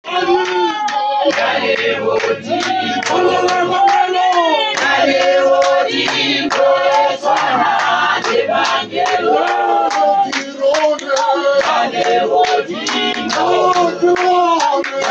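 A group of voices singing a song together, with a strong male voice to the fore, and steady handclapping keeping the beat.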